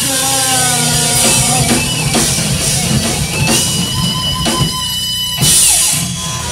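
Live rock band playing: drum kit and electric guitar, with a loud cymbal crash about five and a half seconds in.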